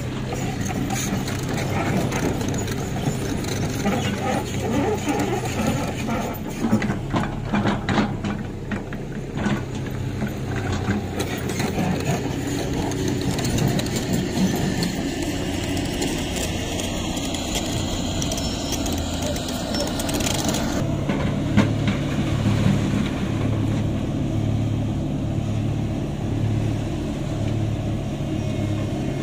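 Isuzu dump truck's diesel engine running under load as the fully laden truck bogs down in soft ground, with scattered knocks and rattles in the first ten seconds. About two-thirds in, it changes to a steadier engine drone with an even pulsing beat.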